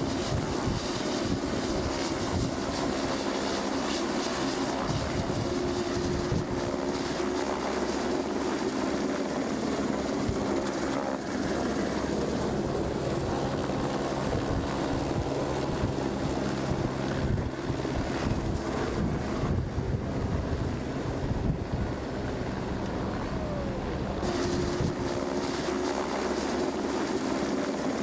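Helibras AS350 Esquilo police helicopter running at close range: a steady rotor and turbine din with a high turbine whine that climbs slowly in pitch as it powers up to lift off. Near the end the whine drops back suddenly and starts climbing again.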